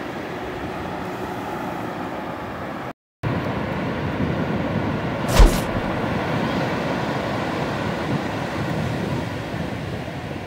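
Ocean surf breaking and washing up the beach in a steady rushing roar. The sound cuts out for a moment about three seconds in, and a short sharp thump comes a little after halfway.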